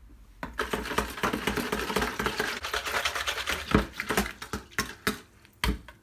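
Wire whisk stirring dry yeast into warm water in a mixing bowl: a fast, continuous clatter of the wires against the bowl, followed near the end by a few separate knocks.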